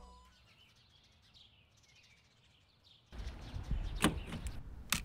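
Near silence with a few faint bird chirps, then outdoor air noise cuts in about three seconds in. A car's outside door handle is pulled, and the door latch gives a sharp click about a second later and a louder one near the end.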